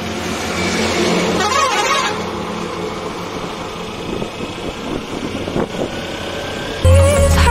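Motorcycle riding along at speed: engine and wind noise, with a warbling vehicle horn sounding briefly about one and a half seconds in. Loud background music with a heavy bass cuts in near the end.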